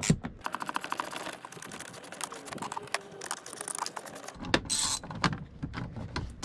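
Ratchet wrench clicking in a quick, even run as it turns a fastener, followed by scattered clicks and a short scrape near the end.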